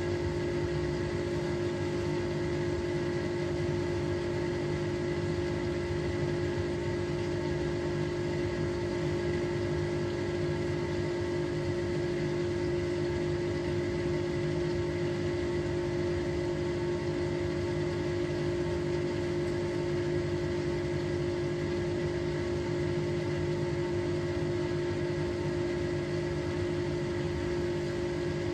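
Hotpoint Experience WMEF641P washing machine running: a steady motor whine over a low rumble, holding the same pitch and level throughout.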